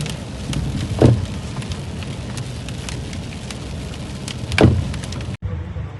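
Rain striking a car in many small ticks over a steady low rumble of engine and road noise, with two louder knocks about a second in and near the five-second mark. Just before the end the sound cuts out for an instant and a duller recording of the same rumble takes over.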